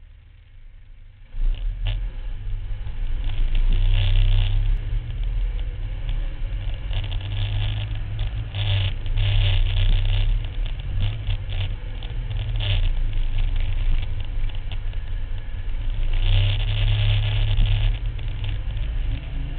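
Engine of a Max IV 6x6 amphibious ATV running under load as it drives over sand dunes, heard from on board. It comes in loud about a second in as a steady low drone, then swells louder several times.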